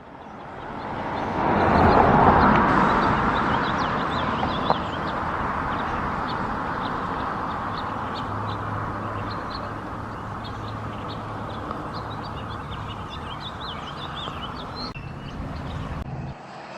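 Small birds chirping repeatedly over a steady rushing noise that swells over the first two seconds and then slowly fades.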